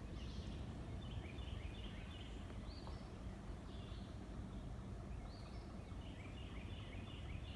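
Bird calls: short chirping notes in three bursts, over a steady low outdoor rumble.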